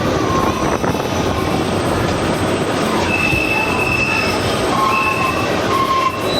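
Kalka–Shimla narrow-gauge toy train running, its wheels rumbling steadily on the rails. From about three seconds in, high wheel squeals come and go at a few different pitches.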